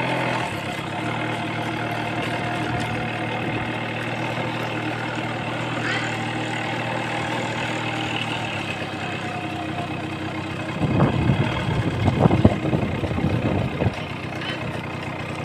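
A motor vehicle's engine runs steadily. A louder, uneven stretch of sound rises over it about eleven seconds in and dies away about three seconds later.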